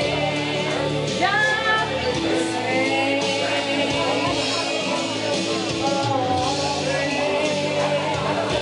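A woman singing a song into a microphone over instrumental accompaniment, her voice sliding between and holding notes.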